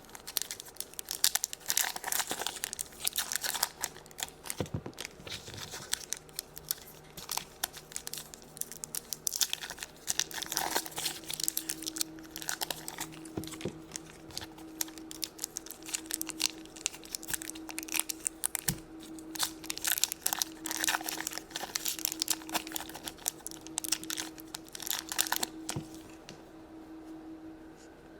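Hands handling modelling clay and its plastic tubes, giving an irregular run of crinkling and small clicks that dies away a couple of seconds before the end. A faint steady hum runs underneath.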